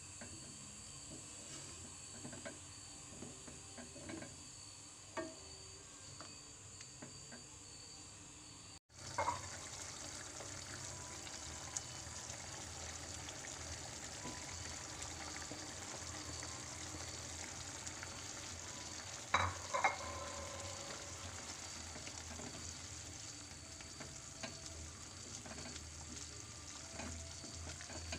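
Chicken curry simmering and sizzling faintly in a nonstick pan while a wooden spatula stirs and scrapes through it, with small clicks of the spatula. There are two sharp knocks of the spatula against the pan a little past two-thirds of the way through.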